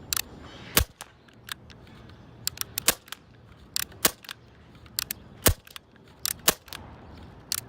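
Red Jacket CO2 airsoft pistol firing single shots at a target, about five or six sharp cracks a second or so apart, with fainter clicks between them.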